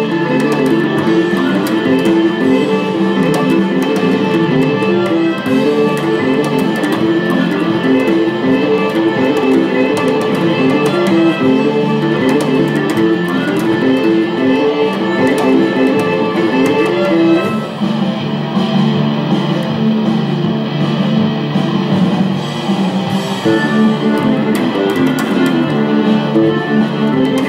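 Fingerstyle electric bass played along with a recorded rock band track with electric guitars, a fast busy riff. The riff drops out about 17 seconds in and a new section starts.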